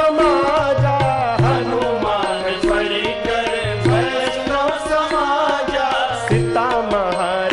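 Devotional bhajan music: tabla drumming under a continuous melodic line, with no words sung.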